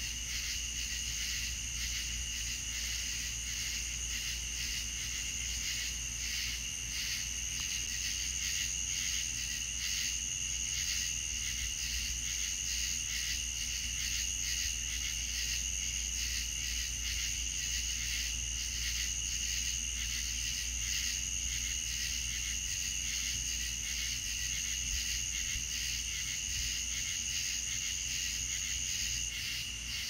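Crickets chirping in a steady night chorus: a high, rapidly pulsing trill on two pitches, the higher of which drops out near the end, over a low steady rumble.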